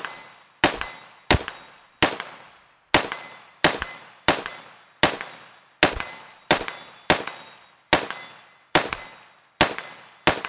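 Lead Star Grunt AR-15 rifle firing .223 55-grain FMJ in steady semi-automatic shots, about fifteen in a row at a bit more than one a second, each shot loud and sharp with a short echo trailing off.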